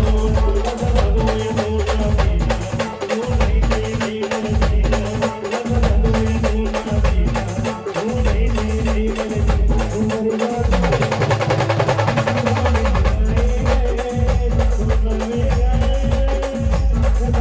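Khandeshi band playing live without vocals: a fast, dense drum beat under a held melodic line. About eleven seconds in, the deep drums drop back and a fast trilling figure comes in; the full drums return about two seconds later.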